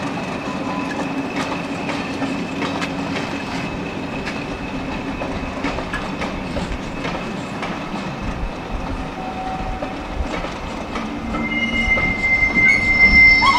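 Diesel-hauled heritage train on the move, its wheels clicking over rail joints under a steady rumble. Near the end a high, steady wheel squeal sets in and grows loud.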